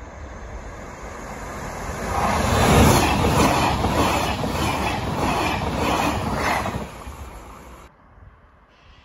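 A TER passenger train passes close by at speed. Its rumble swells as it approaches and peaks as it goes by, with a regular clatter of wheels about twice a second, then falls away. Near the end the sound cuts off abruptly to a quiet background.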